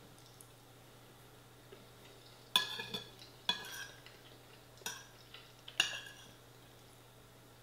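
A metal spoon clinking and scraping against a ceramic bowl while scooping food, four strikes in about three seconds, each with a short ring.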